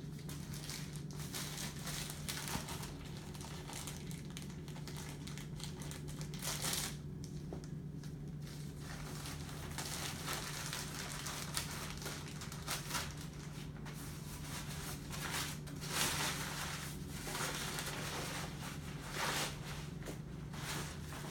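Sterile supply wrappers crinkling and rustling in irregular bursts as packages are peeled open and their contents dropped onto a sterile field, over a steady low hum.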